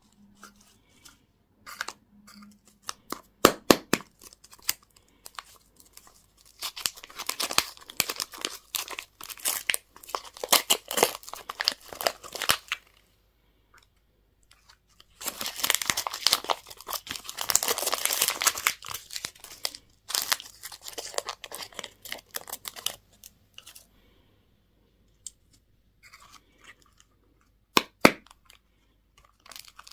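Candy packaging being unwrapped: plastic wrappers crinkling and tearing in bursts with short pauses between them, and a few sharp clicks.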